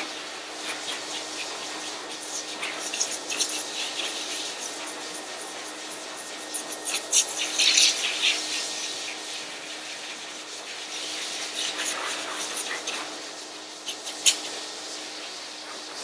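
High-velocity pet force dryer blowing air through its hose and nozzle onto a wet curly dog coat: a steady rush of air over a low steady hum, with many short crackles and flutters that are thickest about seven to eight seconds in.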